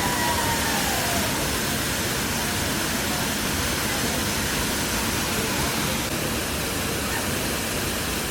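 Waterfall rushing with a steady, even roar. A held high tone trails off about a second in.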